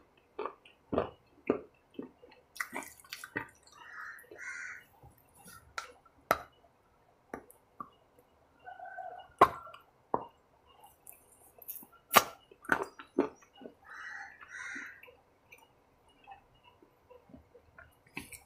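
Close-up eating sounds: a person biting and chewing a snack bar, with many short sharp mouth clicks and wet lip smacks, and a few brief squelchy chewing sounds in between.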